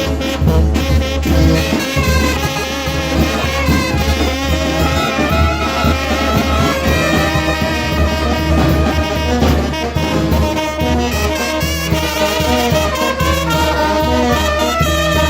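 Mexican village brass band (banda de viento) playing a tune: horns carrying the melody over a steady low bass line.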